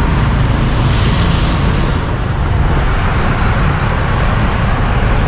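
Steady road-vehicle and traffic noise: a constant low rumble with a hiss over it.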